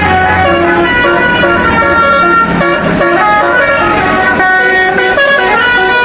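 Tourist bus 'telolet basuri' musical air horn playing a fast tune of stepped horn notes. A low engine hum underneath fades out about half a second in.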